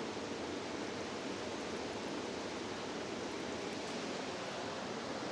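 Steady rush of water falling over a small waterfall.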